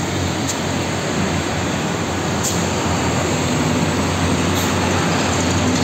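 Road traffic: a concrete mixer truck's diesel engine and tyre noise as it drives by, a steady low hum over a wide rush of noise, growing slightly louder toward the end.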